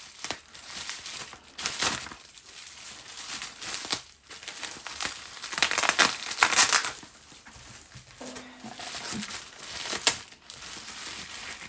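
Paper and packaging crinkling and rustling as items are taken out of a box by hand, loudest around the middle, with a sharp click near the end.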